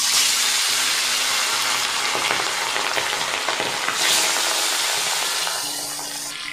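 Salted, turmeric-coated bele (tank goby) fish lowered into hot oil in a kadai and frying with a loud, steady sizzle that starts suddenly as the first fish goes in. It surges again about four seconds in as another fish is added, then eases off near the end.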